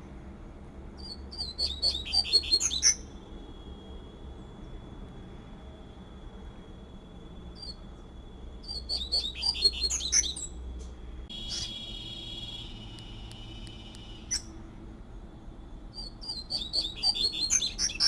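Double-collared seedeater (coleiro) singing its fluted 'tui-tui' song: three short phrases of rapid, high twittering notes, roughly seven seconds apart.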